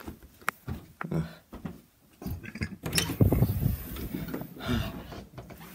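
Knocks and rustling from a handheld phone being moved about, with a person's voice murmuring without clear words in the second half.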